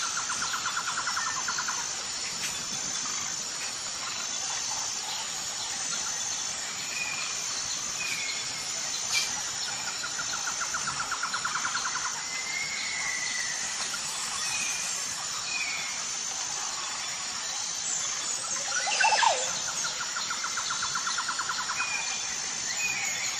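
Bird calls: a rapid trill repeated three times, scattered short chirps and a louder sweeping call near the end, over a steady high-pitched pulsing tone.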